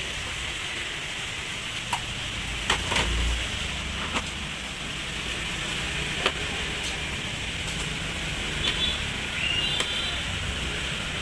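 Steady background noise with a few sharp clicks and knocks scattered through it, and two brief high-pitched beeps or toots near the end.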